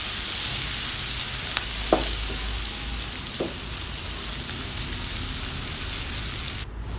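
Sliced onions sizzling in hot oil in a non-stick wok as they are stirred with a wooden spatula, with a few light knocks of the spatula against the pan. The sizzle drops suddenly just before the end.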